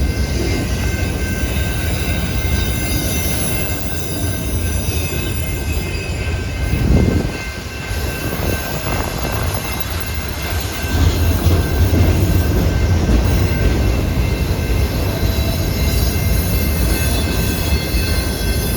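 Train cars rolling past with a steady low rumble and thin, steady high-pitched squealing from the wheels on the rails, growing louder about eleven seconds in.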